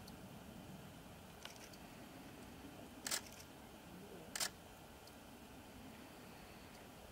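Two sharp clicks about a second and a half apart, with a fainter tick shortly before, over a faint steady background hiss.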